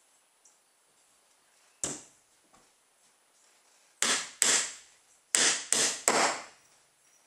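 Hammer driving nails into the finger-jointed wooden corners of a honey super box: a single strike about two seconds in, then five quicker strikes in two groups near the end.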